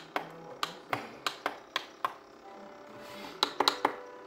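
Rapid plastic button clicks from pressing the controls of a portable DVD player. About eight presses come roughly three a second, then a quick burst of four about three and a half seconds in.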